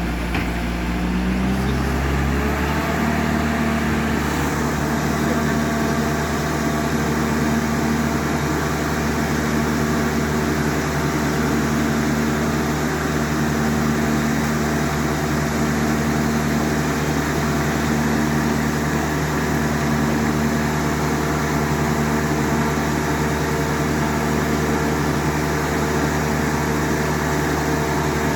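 A motor spinning up to speed over the first couple of seconds, then running steadily at one constant pitch.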